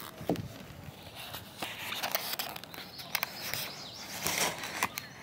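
Outdoor ambience at a lakeshore, broken by scattered short clicks and knocks and a brief low thump near the start, with faint bird chirps.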